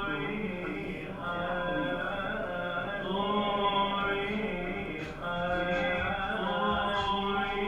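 Live band music: long, sustained chant-like melodic phrases, each about two seconds, over a steady low drone.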